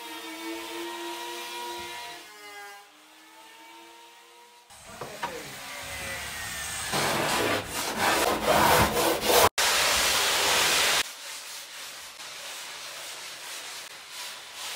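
Hand sanding of a foam surfboard blank: a sanding block scraping back and forth across the foam. The scraping grows to a loud, harsh rasp and stops abruptly after about eleven seconds, then continues more softly. A steady pitched tone sounds in the first few seconds.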